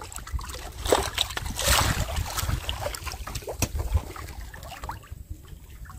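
Water splashing and trickling around a small boat as a fishing line is hauled in, with a few brief splashes and scattered small knocks, over wind rumbling on the microphone.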